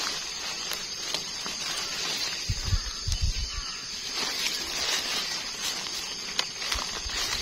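Leaves and undergrowth rustling, with small snaps, as termite mushrooms are picked by a gloved hand. A steady high insect chorus runs behind, and a few low bumps come about two and a half to three and a half seconds in.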